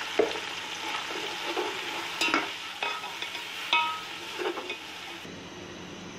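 Chicken frying in oil in a pot, sizzling steadily while a metal spatula stirs it and scrapes and knocks against the pot about five times. A little past five seconds in, the sizzling cuts off to a quiet, steady hum.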